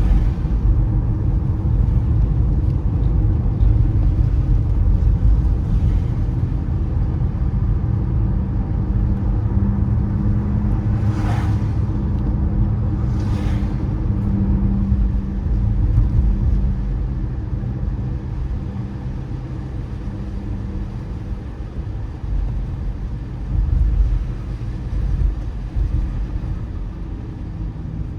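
Car driving on a wet road in the rain: a steady low rumble of road and tyre noise, with two brief swishes about eleven and thirteen seconds in. The sound eases off over the last third.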